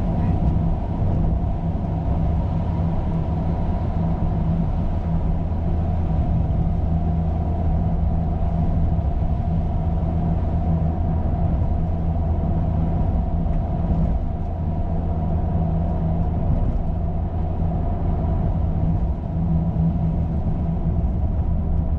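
Car driving at a steady speed, heard from inside the cabin: a constant low drone of engine and road noise.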